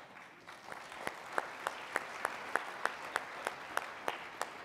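Audience applauding, with one nearby pair of hands clapping steadily at about three claps a second above the crowd; the close claps stop near the end.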